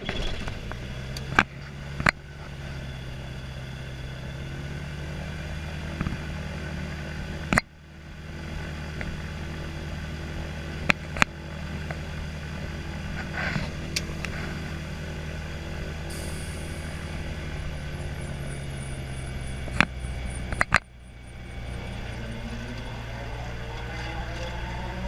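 Gyrocopter's piston engine starting and then idling steadily, with scattered sharp clicks and knocks. Near the end a rising whine climbs above the idle.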